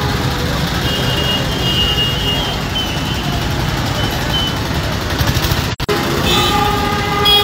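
Road traffic on a rain-wet street: motorcycle and car engines running and tyres on the wet road, a dense steady rumble and hiss. The sound drops out for a moment about six seconds in, and a steady pitched tone comes in after it.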